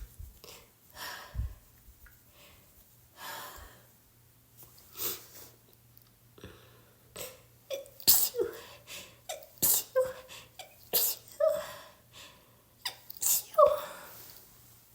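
A person with a head cold sneezing over and over. A few quieter breaths and sneezes come first, then a rapid string of a dozen or so sharp sneezes from about halfway in, the loudest near the end.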